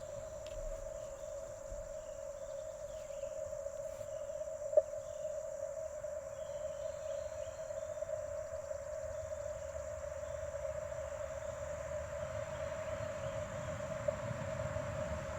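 Amateur radio transceiver's receiver audio: a steady, unbroken tone at Morse-code pitch held over a hiss of band noise, with a single click about five seconds in.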